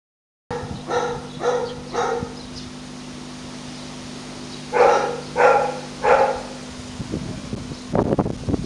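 French bulldog puppy giving short, high-pitched yaps in two sets of three, the second set louder. Rustling and light knocks near the end, over a steady low hum.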